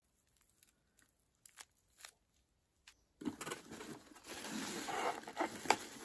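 A few faint taps and clicks from handling, then from about three seconds in a continuous rustle and crinkle of tissue paper as hands dig through it and lift out a small cardboard box.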